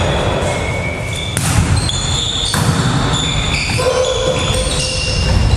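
Volleyball rally on a gym floor: sneakers squeaking in short high tones as players move, and the ball struck sharply about a second and a half in and again a little over a second later.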